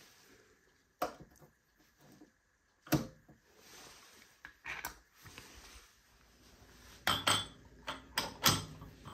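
Sharp metal knocks and clicks as coffee is tamped into a portafilter and the tools are set down. Near the end comes a cluster of louder clunks as the portafilter is fitted and twisted into the espresso machine's group head.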